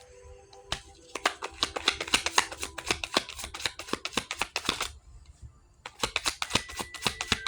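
Tarot cards being shuffled by hand: quick runs of papery clicks and flicks, a brief pause about five seconds in, then shuffling again.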